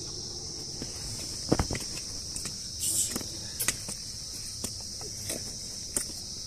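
A steady, high-pitched chorus of insects droning, with the irregular crunch and tap of footsteps on a trail, the loudest about a second and a half in.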